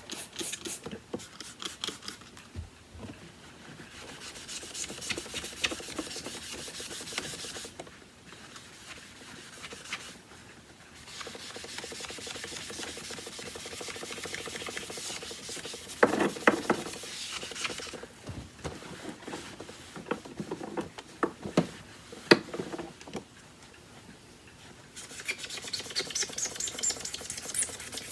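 A magic eraser sponge scrubbing against the vacuum's plastic body and rubber, taking off paint marks. It goes in several stretches of rubbing with short pauses, and a few knocks as the vacuum is handled.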